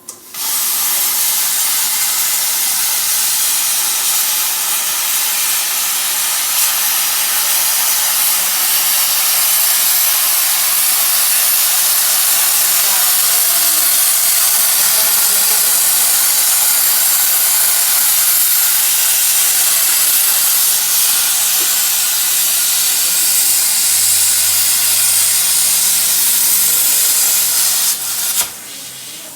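Markweld CUT-80 air plasma cutter cutting: the plasma arc and compressed air make a loud, steady hiss. It starts abruptly and cuts off near the end.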